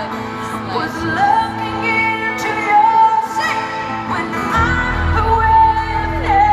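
Live female pop vocal with acoustic guitar, heard from the audience: long held sung notes, with bass and band coming in about four and a half seconds in.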